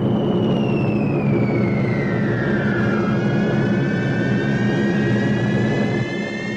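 Steady drone of B-17 bombers' engines, with a high whistle that falls in pitch over the first three seconds, then a second whistle that slowly rises: the whistle of bombs falling.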